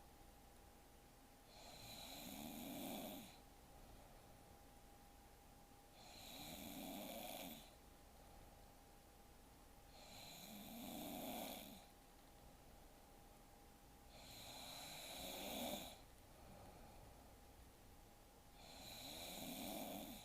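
A woman snoring faintly in her sleep: five slow snores about every four seconds, each swelling over a second or two and then cutting off.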